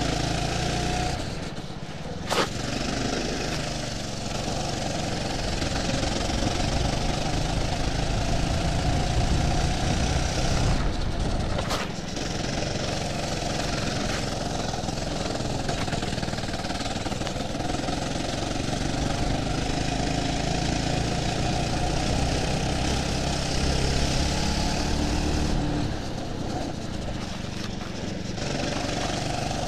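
Go-kart engine running hard under full throttle, heard from the kart itself, its note dropping away briefly a couple of seconds in and again near the end as it comes off the throttle. Two sharp clicks, one a couple of seconds in and one near the middle.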